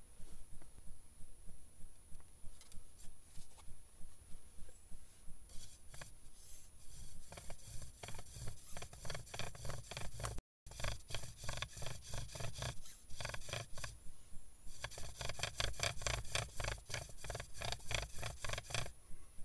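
Hazel bow drill in use: the bow is sawn back and forth, spinning the spindle in the fireboard with a rhythmic rubbing scrape on each stroke. The strokes are light at first and grow louder and stronger from about six seconds in.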